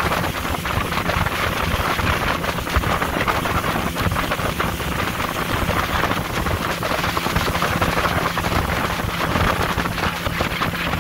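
Motorboat under way on open lake water: a steady rush of wind buffeting the microphone and water against the hull, over a low, steady engine hum.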